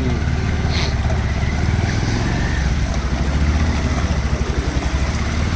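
Motorcycle engine running steadily at low revs, a low pulsing rumble.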